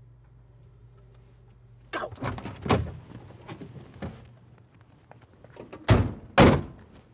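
Front doors of an old Buick sedan opened with a run of latch clicks and knocks about two seconds in, then two doors slammed shut half a second apart near the end, the second slam the loudest.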